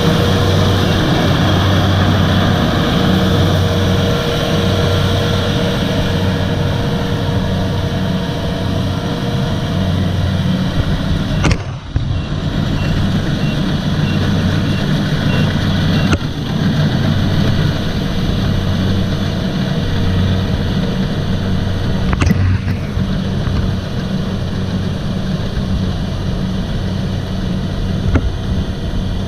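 Kubota DC-70 combine harvester's diesel engine running steadily with a deep, even hum. The sound breaks abruptly with a click about a third of the way in, and twice more later.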